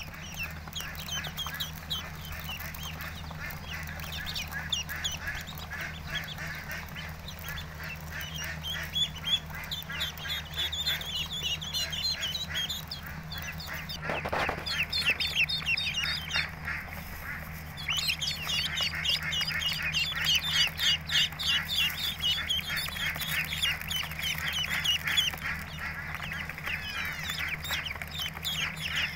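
Many ducklings peeping at once, a dense chorus of short, high, falling chirps that grows busier and louder in the second half, over a steady low hum.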